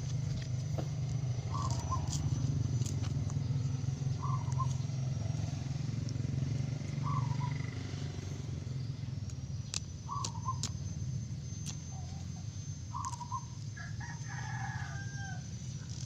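A rooster crowing once near the end, over a short two-note bird call that repeats every few seconds. Under both runs a low steady hum, louder in the first half.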